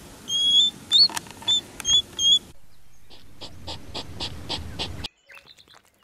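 Edited run of hedgehog sounds. First come five short, high, whistle-like chirps. After a cut there is a steady run of soft wet clicks, about three or four a second, from a hedgehog feeding, and then near quiet with a few faint clicks.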